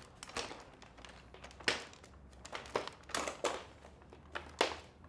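Irregular crinkling and rustling handling noises, a dozen or so short scrapes and crackles at uneven intervals, over a faint low hum; no vacuum motor is running.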